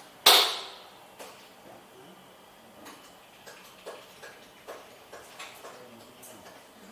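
A single sharp knock about a quarter second in, ringing briefly, followed by scattered light clicks and taps.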